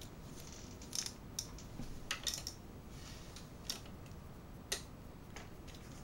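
Scattered light clicks and taps of a plastic Transformers Grimlock action figure's joints and parts as it is handled and posed, about seven or eight sharp clicks spread unevenly.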